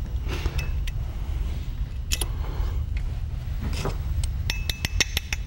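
Small steel parts of a side-by-side shotgun action clicking and tapping against each other as they are handled and fitted, with a quick run of light metallic clicks near the end. A steady low hum runs underneath.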